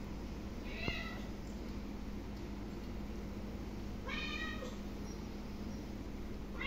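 Cat meowing softly twice: a short high call about a second in and a longer one about four seconds in, over a steady low hum.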